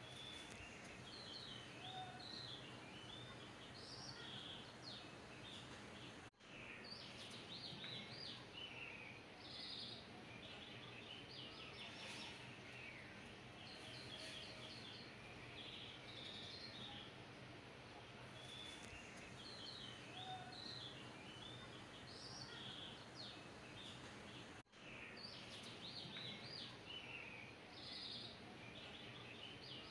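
Faint birdsong ambience: small birds chirping in quick high bursts over a low steady hum. The sound briefly cuts out twice, about eighteen seconds apart, and the chirping pattern repeats like a looped background track.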